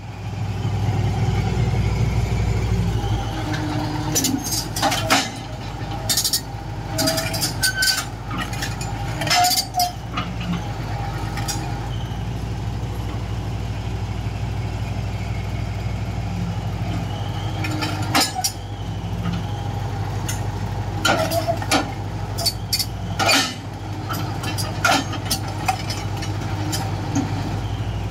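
Daewoo Solar 280LC-III excavator's diesel engine running steadily under load as its steel tracks climb onto a lowboy trailer, with scattered sharp metallic clanks and short squeaks from the tracks on the steel ramp and deck.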